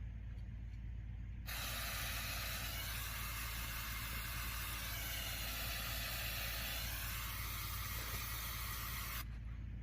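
Aerosol can of brake cleaner spraying in one long hiss that starts about a second and a half in and stops shortly before the end, washing leaked hydraulic fluid off a tractor transmission around a newly fitted neutral safety switch.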